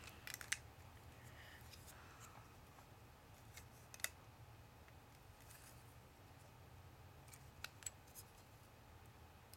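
Faint, scattered clicks and taps of plastic building bricks being handled and pressed onto a model, a few sharp clicks standing out about four seconds in and again near the end, over quiet room tone.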